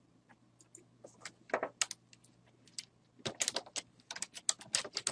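Typing on a computer keyboard: irregular key clicks, a few scattered at first, then in quicker runs from about a second and a half in.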